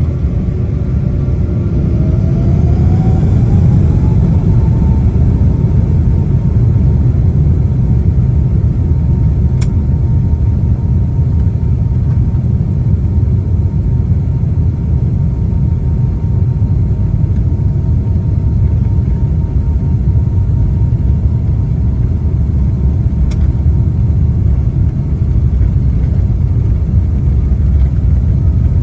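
Boeing 777-200's jet engines heard from the cabin spooling up to takeoff power: a whine rises over the first few seconds and then holds steady over a loud, constant rumble.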